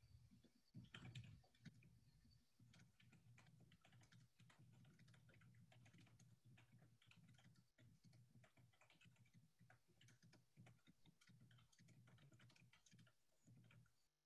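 Faint typing on a computer keyboard: quick, irregular key clicks, with a faint low hum underneath.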